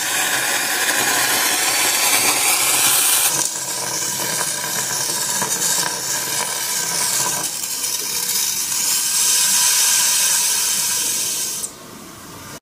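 Sodium metal reacting in a bowl of water: a steady fizzing hiss as the burning piece skitters across the surface giving off hydrogen. The hiss shifts in level a couple of times and drops away sharply about a second before the end.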